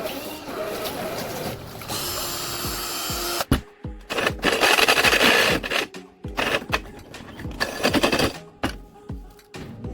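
Cordless drill-driver running in three bursts of a second or two each, under background music.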